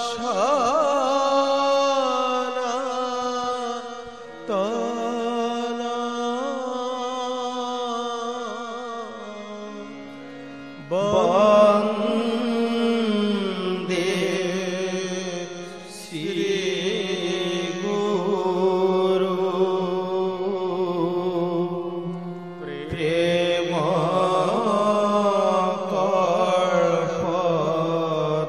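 Indian devotional song in praise of a guru: a voice singing long, wavering notes in phrases over instrumental accompaniment and a steady low drone, with brief lulls between phrases.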